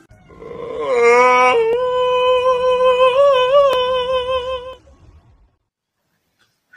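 Domestic cat letting out one long drawn-out yowl: it rises in pitch for about a second, then holds a steady note with a slight wobble before fading out about five seconds in.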